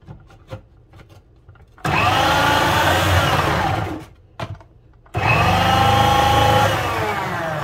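Electric food processor shredding zucchini through its shredding disc, run in two bursts of about two seconds each, starting about two seconds in and again about five seconds in. Each burst is a loud motor whine that rises as it spins up and drops in pitch toward its end.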